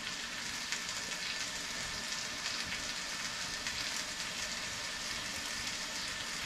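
Ham slices and onions and peppers sizzling steadily in skillets on an electric stovetop.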